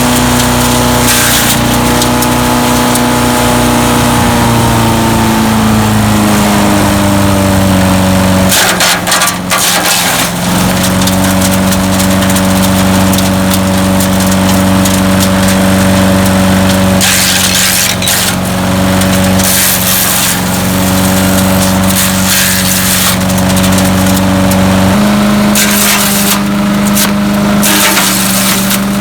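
Landworks 7 HP wood chipper shredder's gas engine running steadily. Its pitch sags for a few seconds about six seconds in and picks back up near the end, with several bursts of crunching, rattling noise as material is chipped.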